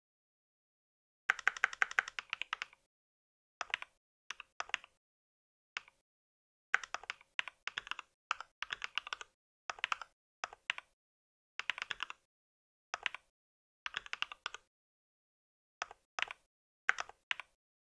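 Typing on a mechanical computer keyboard: quick runs of keystroke clicks broken by short pauses, beginning about a second in.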